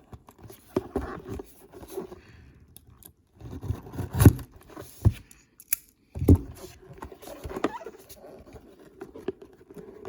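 A small cardboard card box and its packaging being handled and opened by hand: scraping, rustling and several knocks, the loudest about four and six seconds in.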